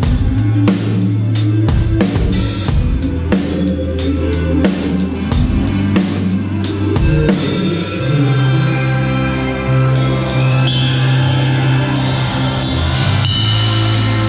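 Band playing, with the drum kit up front: kick, snare and cymbal hits over held bass notes. The drum hits are busiest in the first half; from about two-thirds of the way in, cymbal wash rides over held chords.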